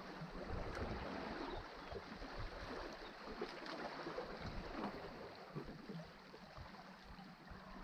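Calm sea water lapping gently against shore rocks: a faint, steady wash with small splashes.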